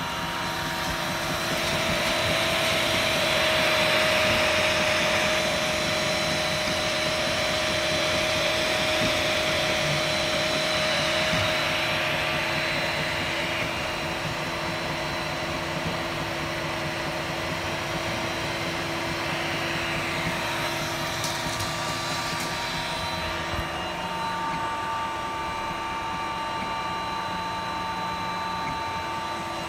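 Tronxy X5SA 3D printer running a print: its cooling fans whir steadily under the whine of the stepper motors driving the print head, with several held tones that change pitch partway through as the moves change.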